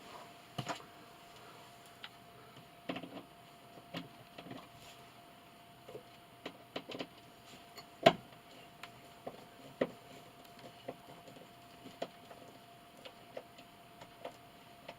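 Scattered clicks and knocks of hands handling the metal wall-mount hardware and screws, the loudest knock about eight seconds in, over a steady faint hum.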